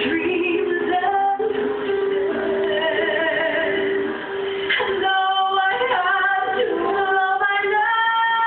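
Background music with a woman singing a melody over accompaniment, ending on a long held note.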